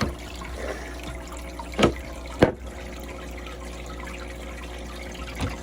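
Aquarium water trickling steadily, with two sharp splashes about half a second apart near the middle as the fish strike at food at the surface.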